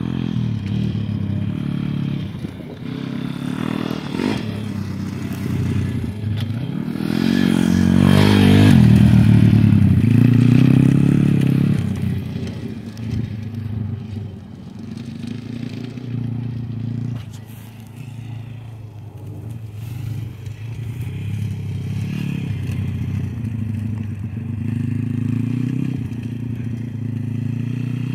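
Small pit-size dirt bike engine running as it is ridden around a dirt track, its pitch rising and falling with the throttle. It gets louder for a few seconds near the middle as it passes close, then fades and picks up again.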